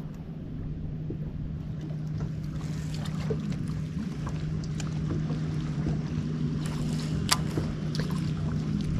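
Boat motor running at a steady hum, with a few light clicks, one sharper about seven seconds in.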